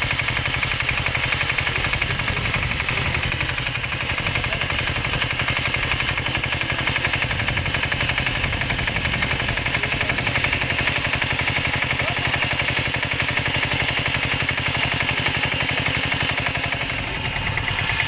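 KAMCO two-wheel power tiller's single-cylinder diesel engine running steadily as it ploughs, with a rapid, even beat of firing strokes.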